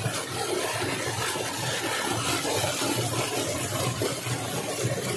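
Steady rush of a small waterfall splashing over rocks into a stream.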